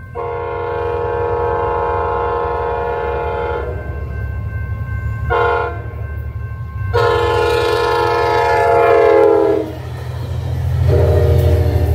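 Horn of a TEXRail commuter train, a Stadler FLIRT diesel multiple unit, sounding the grade-crossing signal: a long blast, a short one, then a long one that drops in pitch as the train passes, and a lower long blast starting near the end. The train's diesel engine and wheels rumble underneath, and the crossing's warning bell rings steadily.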